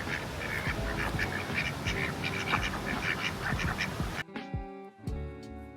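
Ducks quacking, many short calls in quick succession over faint background music. About four seconds in the quacking cuts off abruptly, leaving only the music with plucked notes.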